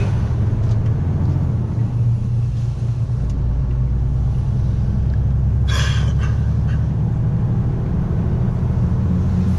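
Steady low drone of a vehicle driving along a road: engine and road noise heard from aboard. A short, higher-pitched sound stands out briefly about six seconds in.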